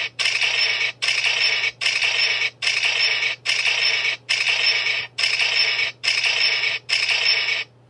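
A harsh, rasping creak repeated in even strokes, about one every 0.85 s, nine or so in a row, cutting off suddenly near the end.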